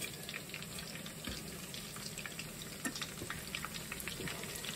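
Meatballs frying in olive oil in a stainless steel pan: a steady sizzle with many small crackles and pops, the meatballs just about done.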